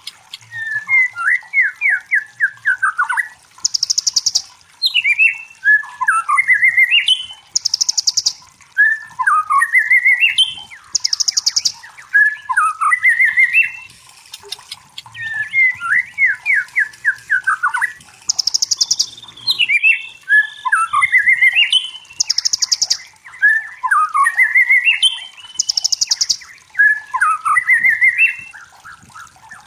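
White-rumped shama (murai batu) song: varied whistled phrases with fast trills sweeping up and down, one every few seconds, with short high buzzy notes between some of them.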